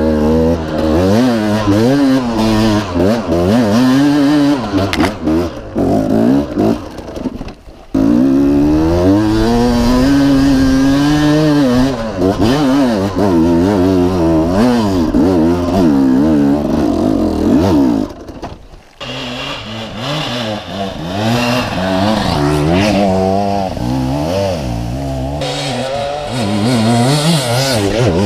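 KTM enduro dirt bike engine revving up and down constantly under a rider's throttle, its pitch rising and falling every second or so. The engine drops briefly quieter about eight seconds in and again about nineteen seconds in, then runs lower toward the end.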